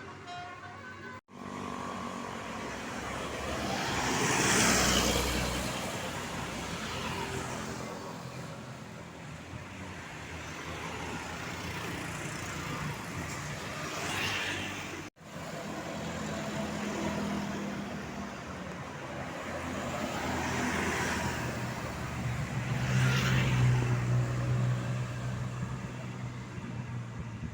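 Road traffic passing close by, with about four vehicles swelling up and fading away one after another. A heavy engine hums low and steady near the end. The sound cuts out sharply twice, once about a second in and again about halfway.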